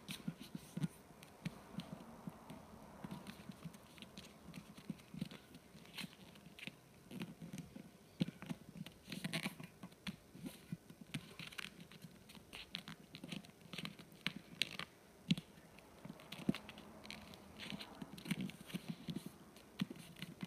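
A small piece of paper being folded and creased hard by hand on a glass tabletop: irregular crinkling and scraping rustles with light taps as fingers press the folds flat.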